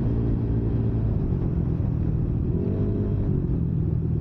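Motorcycle fitted with a JVT V4 teardrop aftermarket exhaust running steadily while being ridden, with a low engine drone and wind on the microphone. Its pitch briefly rises and falls about two and a half seconds in.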